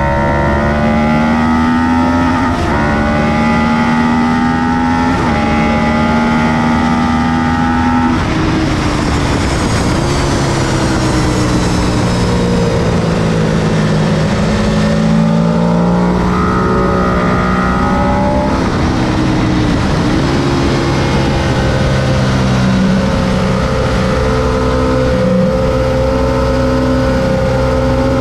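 2004 Ducati 999S's L-twin engine at speed on track: the revs climb and drop sharply with three quick upshifts in the first eight seconds, fall away in the middle as it slows, then pull up through the gears again. A steady rush of noise runs under the engine throughout.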